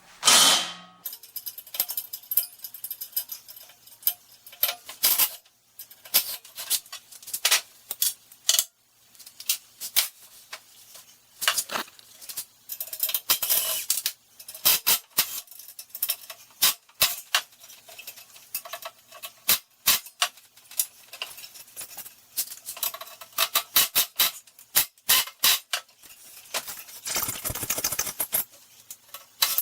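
Irregular metal clicks, clinks and clanks from hand-working on a steel display rack, with a quick flurry of rattling clicks near the end.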